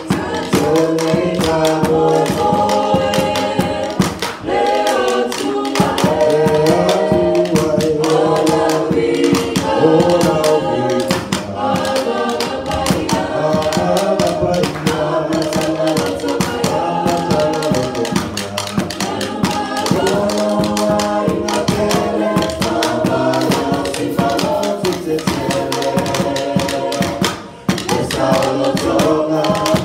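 A small mixed group of women and men singing together in harmony through microphones.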